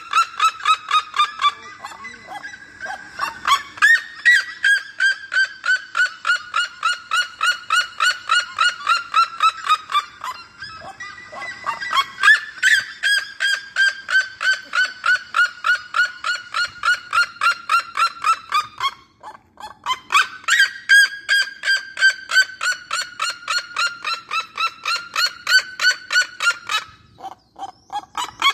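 Red-legged seriema singing: long runs of yelping notes, several a second, in phrases of several seconds each with short breaks between, the pitch sagging slowly through each phrase.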